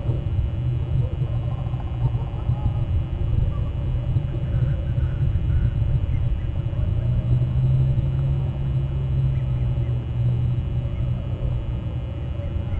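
Steady low rumble, with faint higher sounds scattered over it.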